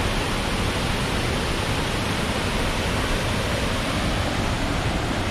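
Steady, even rush of fast-flowing river water tumbling over rocks.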